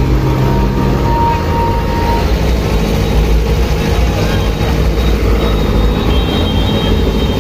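Steady low rumble of heavy truck engines in a loud street crowd, with a thin steady tone in the first two seconds.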